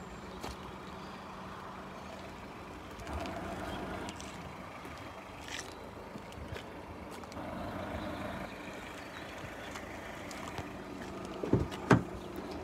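Steady background with a constant low hum, then near the end two sharp clacks as a VW Polo's rear door handle and latch are pulled and the door is opened.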